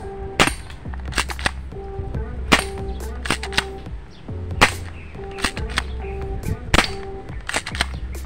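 K117D Beretta-style spring airsoft pistol firing: several sharp snaps about two seconds apart, with lighter clicks between them as the slide is pulled back to cock it for each shot. Background music with a steady beat runs underneath.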